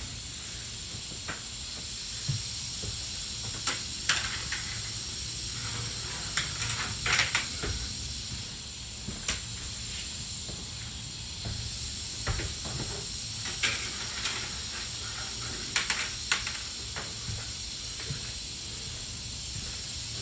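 Scattered sharp knocks and clanks, a few at a time, of tools and metal being handled while a school bus interior is stripped, over a steady hiss.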